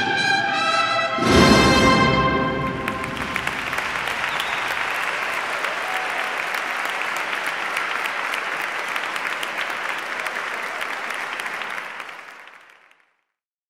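A brass-and-percussion band of trumpets and drums holds its last notes of a processional march and closes with a loud full-band final chord about a second in. The audience then applauds, and the applause fades out near the end.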